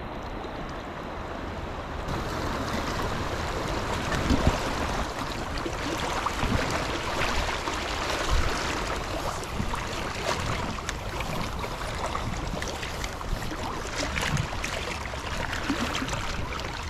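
Shallow creek water running, with splashing as a person wades through it; the rushing grows fuller about two seconds in.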